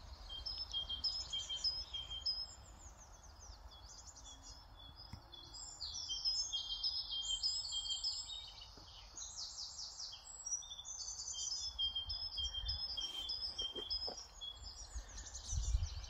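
Small songbirds singing over one another: a steady stream of quick trills and high piping notes. A brief low rumble swells near the end.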